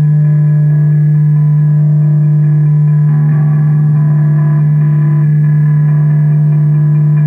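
Experimental noise music from a lo-fi home cassette recording: a loud, steady low droning tone with fainter higher tones above it, which shift about three seconds in.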